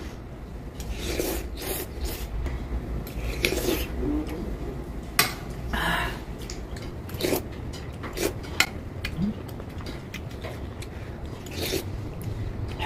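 Someone eating hot soup with a metal spoon: short breathy blows to cool spoonfuls and slurping sips, with a few sharp clicks of the spoon against the bowl.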